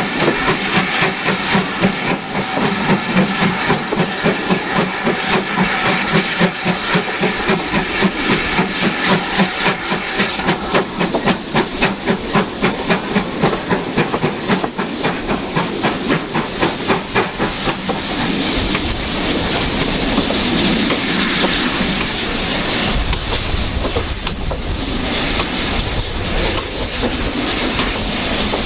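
Exhaust beats of GWR Manor class 4-6-0 steam locomotive 7822 Foxcote Manor, heard from the train behind it, at a steady rhythm of about four a second. After about 17 seconds the beats give way to a steady hiss and rumble of steam and running gear.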